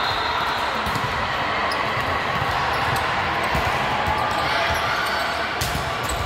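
Volleyball rally in a large echoing gymnasium: a few sharp slaps of the ball being served and played, over a steady din of players' and spectators' voices.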